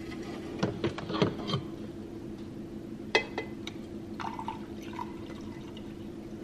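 Coffee being poured from a glass carafe into a mug, with a few clinks and knocks as the carafe is handled, over a steady low hum.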